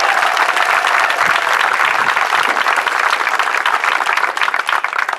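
Audience applauding: dense clapping from many hands, easing slightly near the end.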